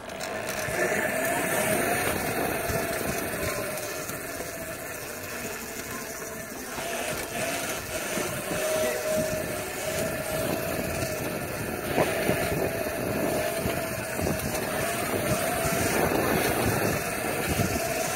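Rumbling of small hard wheels rolling over paving while riding a hoverboard, with a steady whine running through it and wind noise on the microphone.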